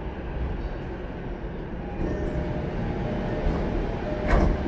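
Interior of an E233-1000 series electric commuter train at a station stop: a steady low rumble, then near the end the sliding passenger doors open with a loud thump.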